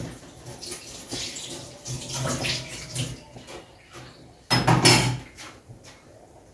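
Kitchen handling noises beside a stove: irregular bursts of rustling and clatter, with a louder burst about four and a half seconds in.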